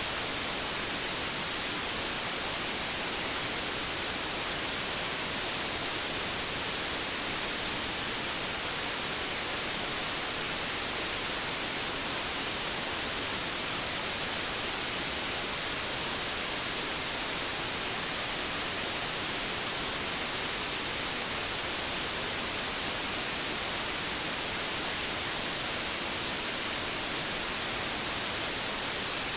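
Steady white noise: an even, unchanging hiss, brightest in the highs.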